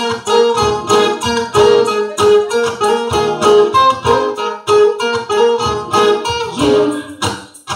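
Acoustic guitar strummed in a steady rhythm, dropping away briefly near the end.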